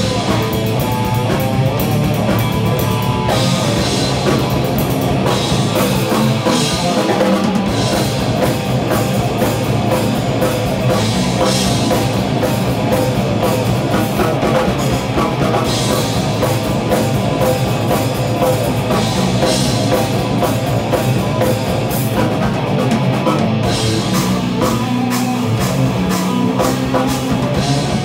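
Live rock band playing an instrumental heavy rock piece: drum kit, electric bass and two electric guitars together, with cymbal crashes every few seconds.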